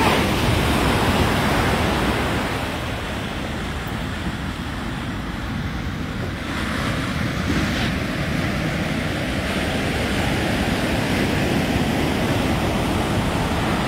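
Steady rush of ocean surf and wind, with wind buffeting the microphone.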